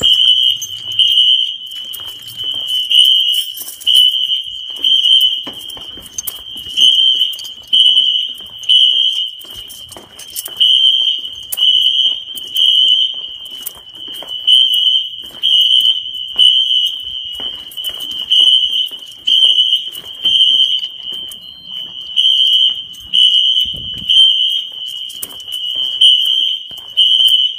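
Wheelock fire alarm horns sounding in alarm: a loud, high single tone pulsing on and off about once a second, with footsteps on a hard floor underneath.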